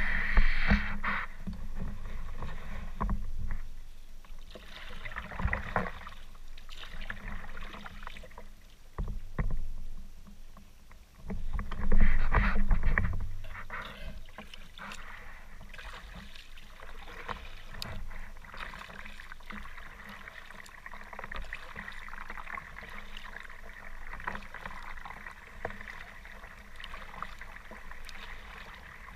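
Water splashing and sloshing around a kayak on choppy, wind-driven waves, with several loud surges of splashing in the first half and steadier lapping after.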